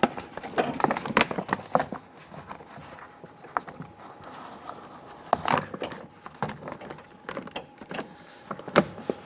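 Plastic door water shield crinkling and rustling in irregular clicks and crackles as it is folded over and handled against the door.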